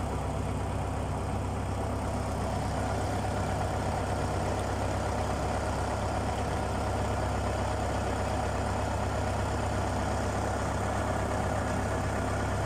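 Fishing boat's engine running steadily, a constant low drone with no change in speed.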